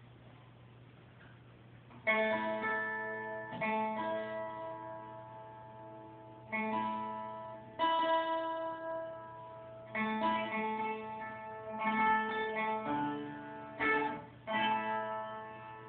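Acoustic guitar playing the instrumental introduction to a song, with chords struck about every one to two seconds, each left to ring and fade. A faint low steady hum comes first, and the guitar begins about two seconds in.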